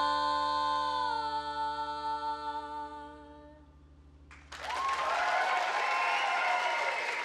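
Singing voices hold the song's final note, 'Lord', in harmony until it fades out about three and a half seconds in. After a brief pause the audience breaks into applause.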